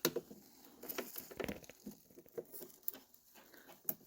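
Light, scattered clicks and rustles of hands handling small plastic parts and wiring.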